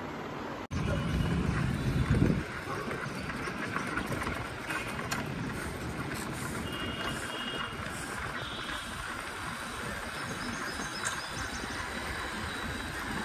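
Steady rushing noise of a bicycle ride along a city street: wind on the microphone and tyres on the road. There is a louder low rumble for the first second or two, and a few faint short high beeps around the middle.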